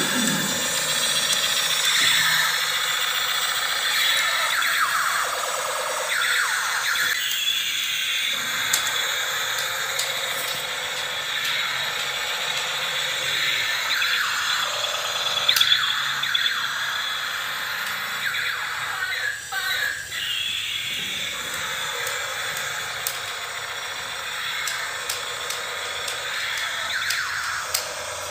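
Battery-powered 2-in-1 tank and jet fighter toy playing its electronic military sound effects through a small speaker: repeated rising and falling whining sweeps, about every two seconds, over a steady high tone.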